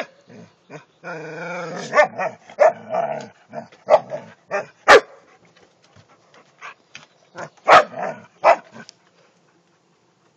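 Two dogs, one a collie, play-fighting, with play growls, snarls and short barks. A drawn-out growl comes about a second in, followed by a run of sharp barks and snaps, the loudest near five and eight seconds. It dies away about nine seconds in.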